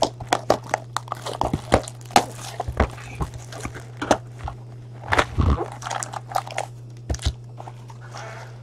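Cardboard hobby box and foil-wrapped trading-card packs being handled: a busy run of crinkles, taps and light knocks as packs are pulled out and stacked, with a heavier thump about five seconds in. A steady low electrical hum runs underneath.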